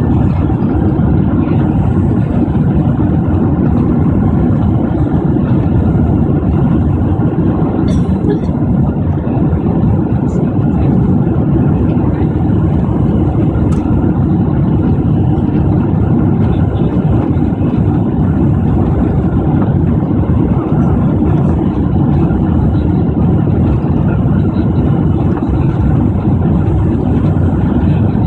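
Steady low rumble of a Boeing 767-400ER's engines and rushing air, heard from inside the passenger cabin on final approach, with a couple of faint clicks.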